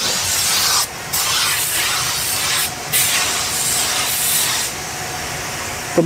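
Compressed-air paint spray gun hissing as white basecoat is sprayed onto a car door. The hiss breaks off briefly about a second in and again near three seconds, as the trigger is let go between passes, and is somewhat quieter for the last second or so.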